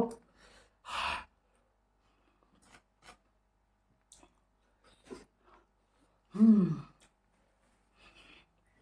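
A person chewing food with small wet mouth clicks and a breathy puff about a second in. Near the end comes a short hummed "mm" that falls in pitch, the loudest sound.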